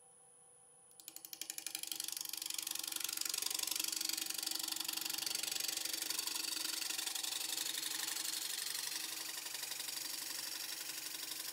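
Bowl gouge cutting the outside of a green spalted sugar maple natural-edge bowl blank spinning on a lathe. About a second in, the cut starts as separate rapid knocks and builds into a steady fast chatter, pulsing with each turn of the uneven natural-edge blank.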